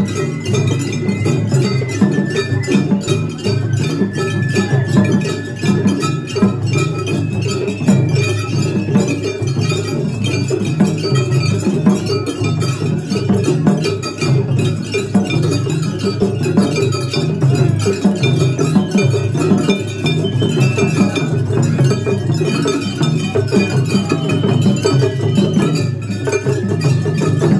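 Japanese festival float hayashi music: taiko drums beating a fast, steady rhythm, with a small hand gong clanging along and a bamboo flute playing high held notes above.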